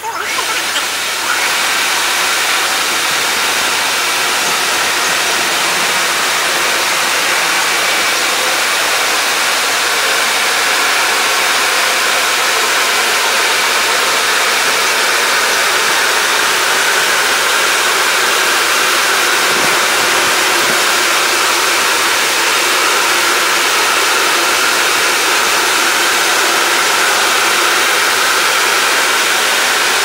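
Drying blowers of an AA4C AA-360RD touchless car wash machine coming on abruptly and then running as a loud, steady rush of air over the car.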